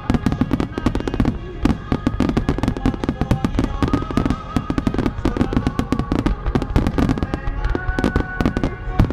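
Starmine fireworks barrage: a dense, continuous run of aerial shells bursting, many bangs a second with crackle between them, with music playing underneath.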